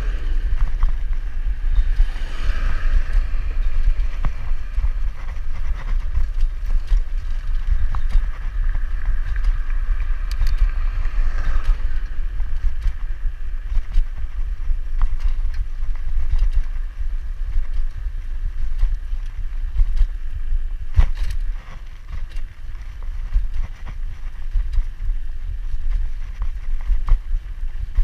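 Steady, heavy rumble of wind buffeting the microphone, with a faint whine coming and going in the first half and a single sharp knock about three quarters of the way through.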